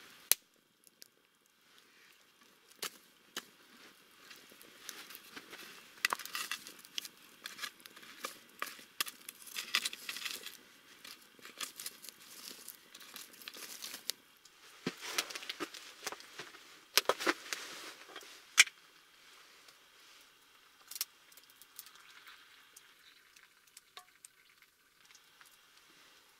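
Wood campfire crackling and popping, with rustling and knocking as the burning logs and embers are poked and stirred with a stick; busiest about six to eleven seconds in and again around fifteen to nineteen seconds, with the sharpest snaps near the end of that second stretch.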